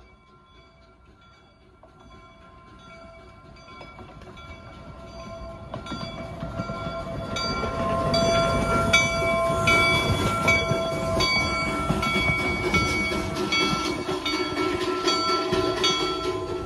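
Replica Union Pacific No. 119 4-4-0 steam locomotive and tender running past close by. It grows steadily louder over the first several seconds as it approaches, then comes by with its wheels clicking over the rail joints. Steady ringing tones at several pitches sound throughout.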